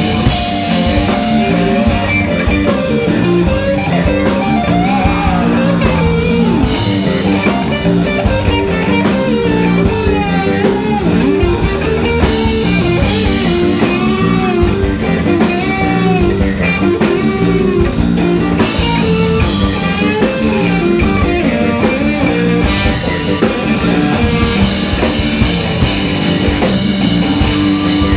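Live rock band playing an instrumental passage: electric guitar, electric bass and drum kit, with a lead line of bending notes over a steady groove.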